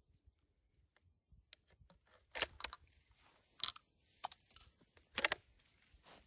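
Sharp metal clicks and clacks from a Cobray Terminator 12-gauge single-shot shotgun's action being worked by hand, about half a dozen spread irregularly over a few seconds, the loudest in the middle.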